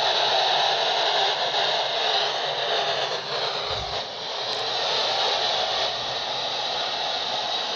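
Static hiss from a Uniden handheld CB transceiver's speaker, steady and fairly loud, with no voice traffic coming through. There is a brief low thump about halfway through.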